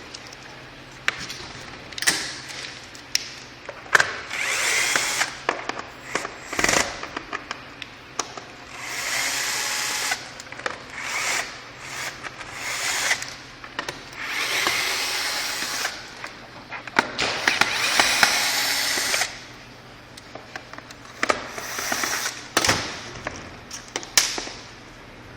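Cordless power drill-driver running in repeated short bursts of one to two seconds, with sharp clicks and clacks of tools and plastic between them, as it works on the screws of an e-bike battery case.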